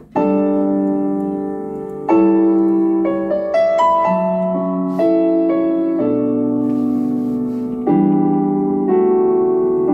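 Piano accompaniment to a worship song playing slow, sustained chords, a new chord struck every second or two, with a short rising line of notes about three seconds in.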